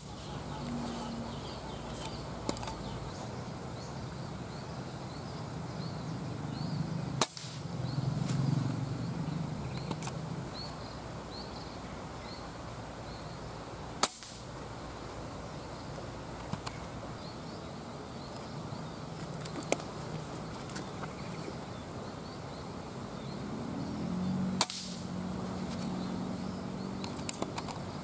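Air rifle firing 4.5 mm pellets: three sharp shots several seconds apart, with a few fainter clicks between them, over a steady outdoor background with faint bird chirps.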